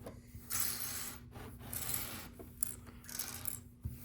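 Small plastic LEGO pieces rattling and scraping as hands sort through them, in three short bursts about a second apart.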